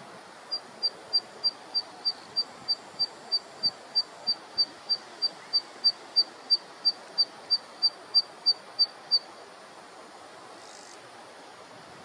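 Zitting cisticola singing: a long series of short, sharp, high notes, evenly spaced at about three a second, stopping about nine seconds in.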